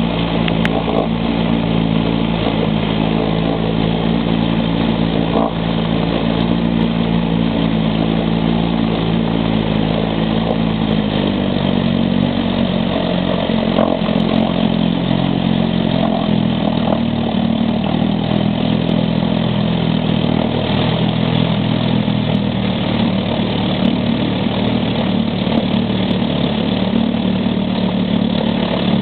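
1947 Firestone 7.5 hp twin-cylinder two-stroke outboard motor running steadily in a water test can. Its speed settles slightly lower about eleven seconds in.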